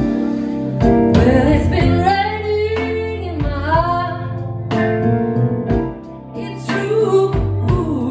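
A blues band playing live: a woman sings a drawn-out phrase that bends in pitch over organ, keyboard, electric guitar and drums.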